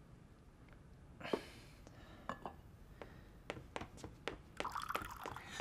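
Small ceramic teaware handled on a table: a sharp clink about a second in, several light taps, then liquid poured from a teapot into a cup near the end.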